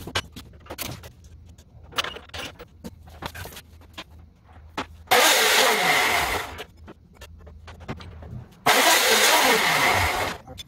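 A power cutter slicing through square steel bar stock, twice. Each cut is a loud, harsh burst lasting about a second and a half, and the motor's pitch falls as it winds down after the cut. Light clicks and knocks of the metal being handled come before the cuts.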